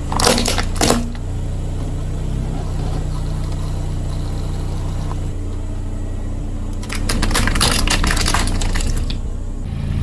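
A car tyre crushing a plastic toy rifle: two sharp cracks in the first second as the plastic gives, over the steady low hum of the car's engine, then a second run of crackling and crunching about seven seconds in.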